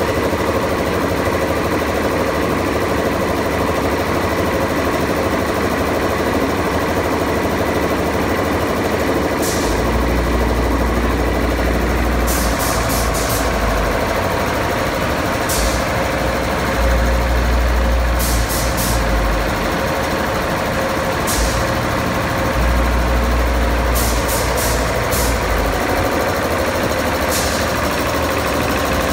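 Kirloskar belt-driven reciprocating ammonia refrigeration compressor running steadily, a loud continuous mechanical hum and clatter. Heavy low rumbles come and go from about a third of the way in, and short sharp clicks are scattered through the second half.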